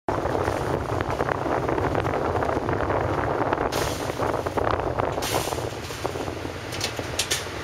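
Car ferry's engines running with a steady low drone, mixed with wind blowing on the microphone, with two short gusts of hiss about halfway through.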